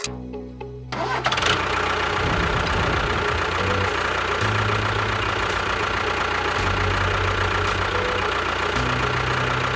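A motor starts abruptly about a second in and runs steadily at an even pitch.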